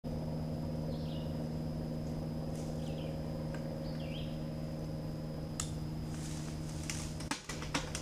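A steady low hum runs throughout, with three short bird chirps in the first half. Near the end comes a run of clicks and knocks as the mountain bike sets off on the dirt trail.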